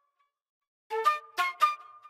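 Sampled flute (Maschine's Passion Flute sound) played back from a MIDI clip. About a second in it plays three short notes in a quick phrase, and the last one rings on.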